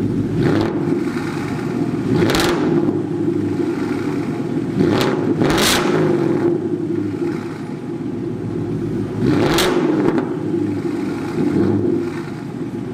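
2016 Ford Mustang GT's 5.0 V8 running through a resonator-delete H-pipe exhaust, idling with several short revs. The owner hears a slight exhaust leak, which he puts down to the slip-on clamps at the H-pipe joints.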